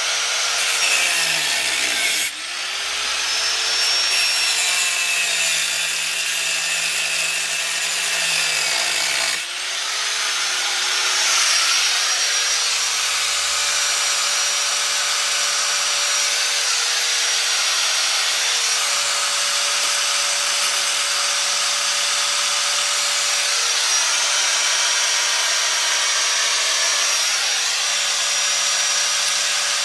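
Angle grinder cutting into metal one-way security screws, a steady grinding that dips briefly twice, about two and nine seconds in, and picks back up each time.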